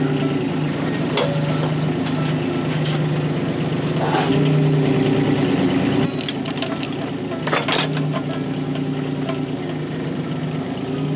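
Volvo EC20 mini excavator's diesel engine running steadily, heard from inside the cab while the arm moves the hanging wood-splitter attachment, with a few sharp knocks. The engine gets a little quieter about six seconds in.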